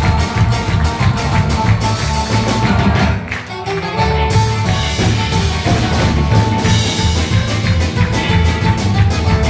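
Live band playing upbeat Cypriot-style music on drum kit, electric guitars and a bouzouki, over a steady driving beat. The band drops back briefly about three seconds in, then comes back in full a second later.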